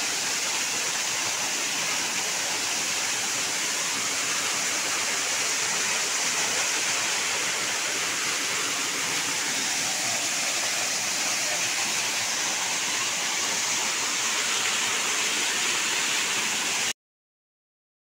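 Small waterfall pouring over rocks and splashing into a pool below: a steady rush of falling water that cuts off suddenly near the end.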